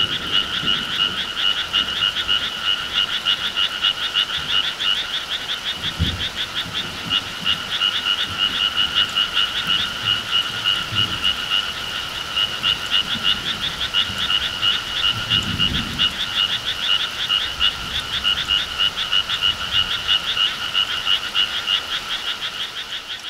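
A dense chorus of frogs calling without pause, many rapid overlapping croaks a second, fading out near the end.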